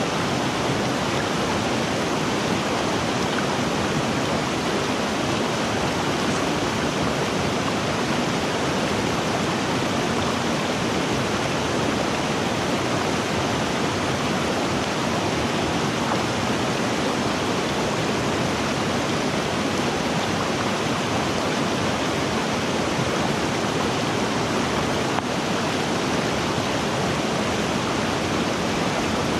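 River water rushing steadily, an even unbroken rush with no distinct splashes or other events.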